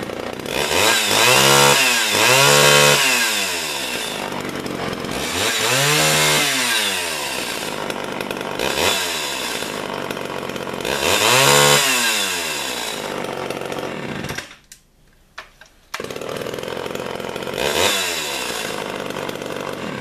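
Homelite XL two-stroke chainsaw running, revved up and let back down to idle about six times. It goes quiet for about a second and a half around two-thirds of the way through, then is running again.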